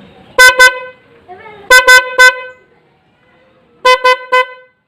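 Hella snail horn sounding in short, really loud toots in three bursts: two, then three, then three. It has just been wired through a four-pin relay and is being tested.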